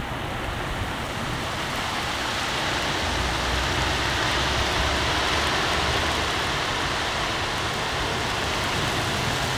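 Heavy rain pouring down steadily, a dense even hiss that builds a little over the first couple of seconds.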